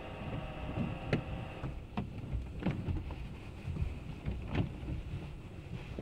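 Automatic car wash heard from inside the car: a continuous low rush of water and brushes washing over the body. A faint machine whine fades out in the first second or two, and a few sharp knocks hit the car, about one, two and four and a half seconds in.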